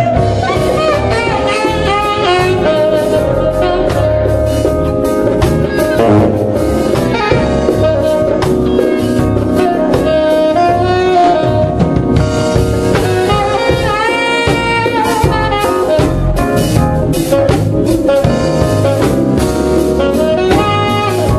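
Live band playing neo-soul, a saxophone carrying the melody over keyboard, bass and a drum kit keeping a steady beat.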